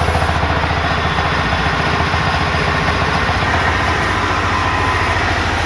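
Sawmill engine running steadily with a fast, even pulsing beat.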